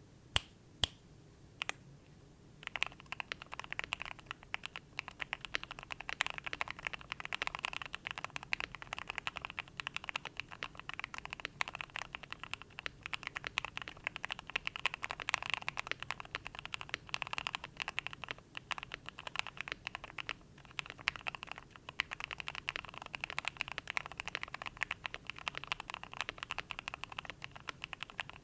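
Fast, continuous typing on a Cidoo Finalkey V65 custom mechanical keyboard with L+F JWK JWICK Black linear switches, an FR4 plate and cherry-profile PBT keycaps, tape- and polyfill-modded. A few single keystrokes come first, then dense rapid typing from about three seconds in.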